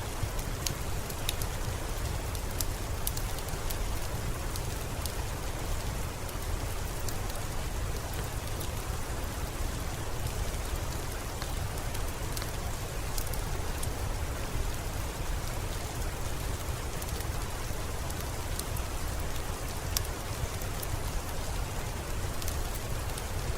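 Steady rain, a continuous even hiss with a low rumble underneath, mixed with the scattered sharp snaps of a crackling fireplace fire.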